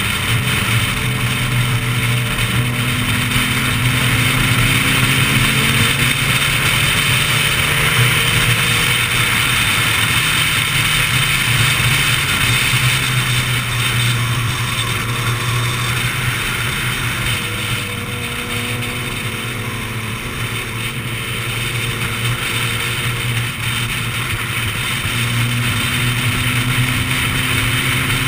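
Sport motorcycle ridden at speed: a steady engine drone under heavy wind rush on the camera's microphone, with faint engine notes from the other bikes rising and falling.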